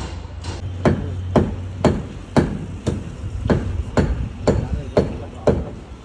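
Hammer blows on the wooden staircase formwork: about ten evenly spaced strikes, two a second, starting about a second in. A low steady hum runs underneath through the first half.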